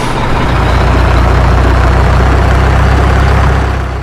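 Heavy truck engine running at idle with a low, steady drone, swelling about half a second in.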